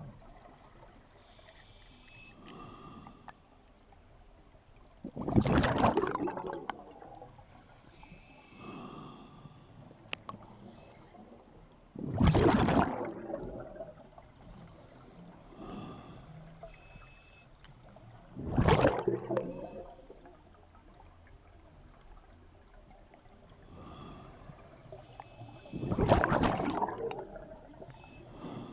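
Scuba diver breathing underwater through a regulator: four loud rushes of exhaled bubbles about six to seven seconds apart, each lasting about a second, with a fainter regulator hiss on each inhale between them.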